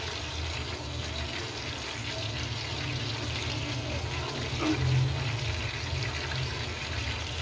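Chicken tenders deep-frying in hot oil in a steel kadai: a steady sizzle and crackle, a little louder for a moment about five seconds in.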